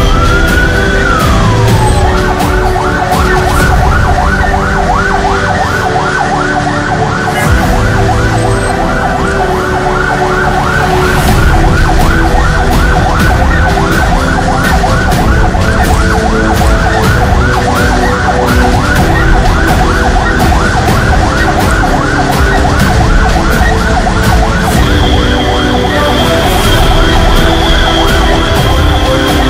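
Ambulance siren heard from inside the ambulance: one slow wail sweeping up and down, then, a couple of seconds in, switching to a fast yelp repeating about four times a second, over the vehicle's engine and road noise.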